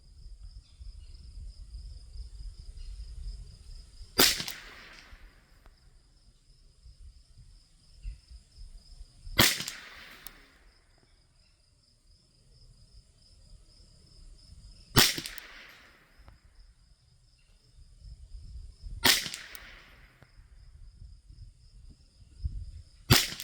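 Five single shots from a Thompson Center TCR 22 rifle firing .22 LR SK Standard Plus ammunition. The shots come one at a time, about four to six seconds apart, each a sharp crack with a short fading tail.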